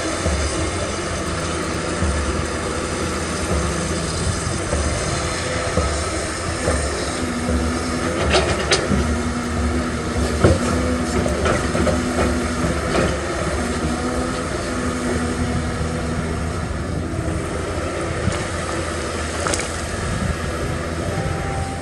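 Caterpillar 320D hydraulic excavator working: its diesel engine runs steadily under load, a low hum comes and goes as the hydraulics work, and a few sharp knocks of bucket and rock sound around the middle.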